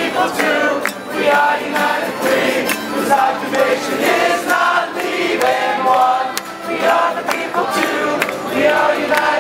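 Many voices singing together, choir-like, with a continuous sung melody and a steady rhythm.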